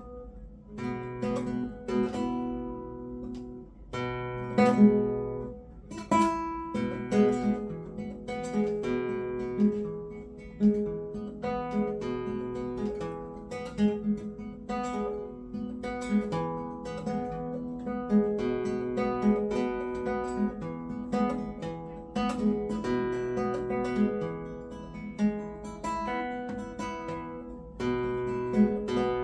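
Acoustic guitar being played: a steady run of picked notes forming a melody over lower bass notes.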